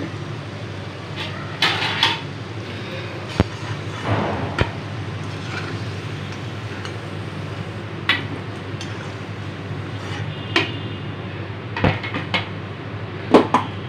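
A slotted steel spatula clinks and scrapes against an iron kadhai as fried koftas are scooped out of the hot oil, giving a handful of sharp knocks spread over the time. Under them runs a low, steady sizzle of frying oil.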